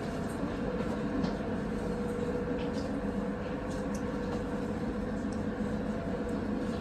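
Passenger ferry's engine running steadily as the boat comes in to the landing: a continuous low hum with a held droning tone.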